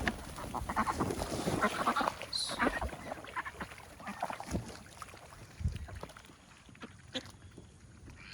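Ducks quacking amid splashing water, with the activity busiest in the first three seconds and then thinning out to scattered short sounds.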